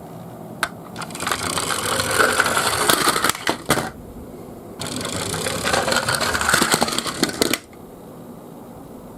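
Toy garbage-truck minicars rolling down a slope, their small wheels giving a rapid rattle. There are two runs a couple of seconds long, each cutting off abruptly.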